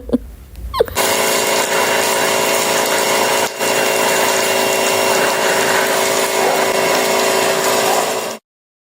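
Electric pressure washer running steadily: a motor and pump hum with several steady tones over a hiss of spraying water. It cuts off abruptly near the end.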